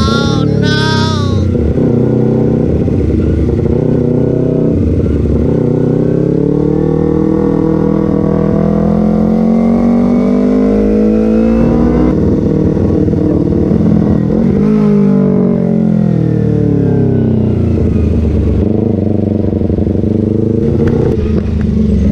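Kawasaki Ninja sport motorcycle engine under way, heard from the rider's seat. The revs climb slowly as it pulls, drop sharply about halfway through, then rise and fall again.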